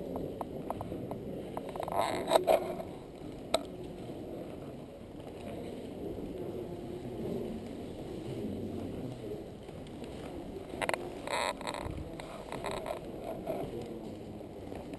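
Indistinct murmur of a large room full of visitors, with a few short clicks and knocks about two to three seconds in and again around eleven seconds.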